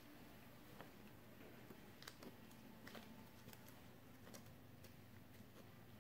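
Near silence: room tone with a few faint, scattered soft clicks as a rubber tourniquet band is stretched and tied around an upper arm.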